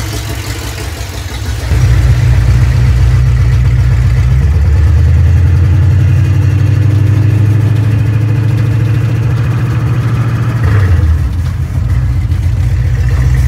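1986 Ford F150's engine running through open headers, heard from inside the cab while driving: loud and steady, jumping louder about two seconds in, with a brief dip near the end.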